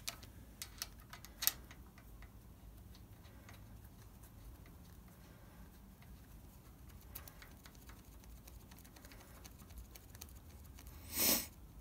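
Hands handling the metal gearbox and PTO housing of a brake lathe. There are a few light clicks and taps in the first second and a half, faint ticks after that, and one brief louder handling noise near the end.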